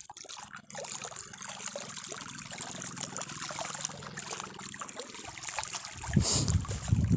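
Shallow seawater lapping and trickling at the water's edge, with a faint steady low hum beneath. About six seconds in, loud low rumbling handling noise on the microphone begins as a hand comes close to it.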